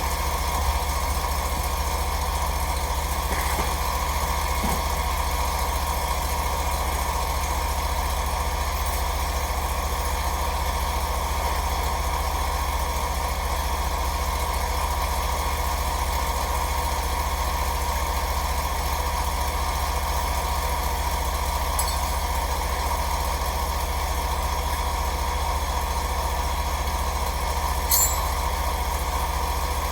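New Briggs & Stratton engine on a Scag mower running steadily, the engine's first run after installation. A short click sounds near the end.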